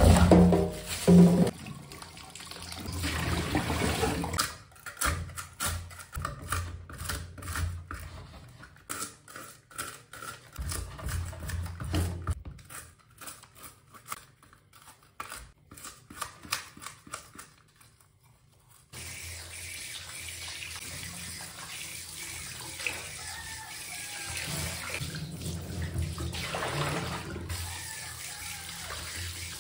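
Tap water running into a stainless steel sink and over fish in a plastic basin. Through the middle stretch comes a long run of quick, sharp scraping strokes from a plastic fish scaler working the scales off the fish. A short pause follows, then the water runs steadily again.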